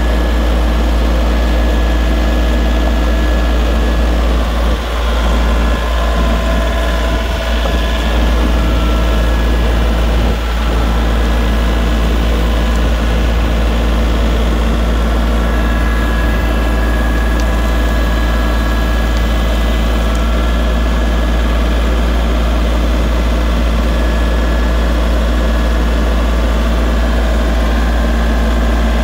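John Deere compact tractor engine idling steadily, a constant low drone.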